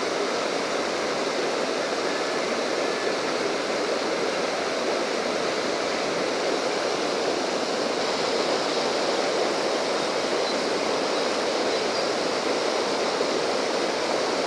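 Rushing water, a steady unbroken rush of a stream or waterfall.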